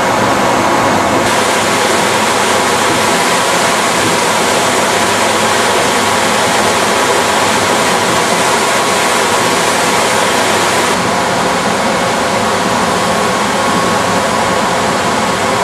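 Escher Wyss P-5 two-stage pusher centrifuge running: a loud, steady whirring rush from its drive motor and spinning stainless basket, with a constant hum of several steady tones. The hiss brightens about a second in and dulls again near the end.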